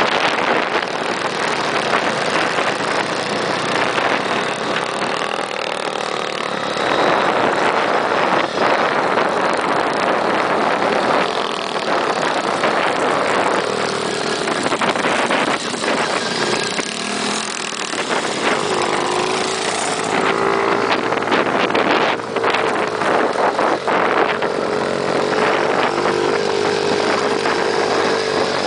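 A small engine running while riding over a rough dirt track, with scattered knocks and rattles from the bumps; a steady engine tone holds through the second half.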